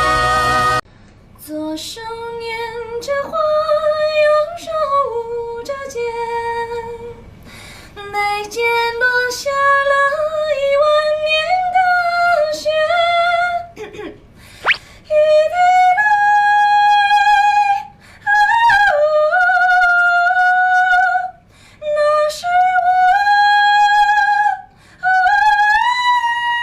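A woman singing solo and unaccompanied in a clear, high voice, holding long notes joined by slides and climbing phrase by phrase, with short breaks for breath, to a very high held note near the end.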